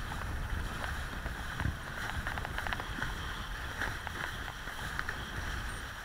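Wind buffeting the microphone of a rider-mounted action camera, over the hiss and irregular slapping of a kiteboard planing across choppy water.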